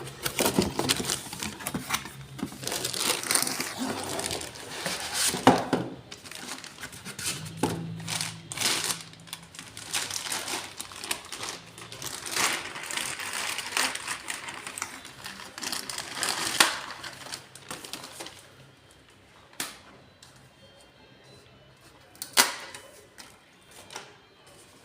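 Plastic crinkling and rustling, full of small clicks, as a laser-printer toner cartridge and its plastic packaging are handled. Near the end it goes quieter, with two sharp plastic clicks a few seconds apart.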